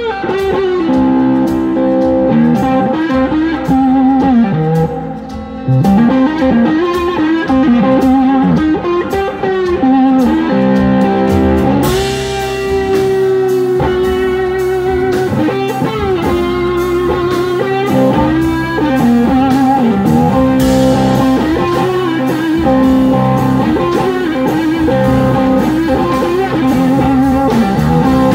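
Live blues-rock band playing loud: an electric slide guitar solo of gliding, bending notes over bass, drums and a horn section, with cymbal crashes about twelve and twenty-one seconds in.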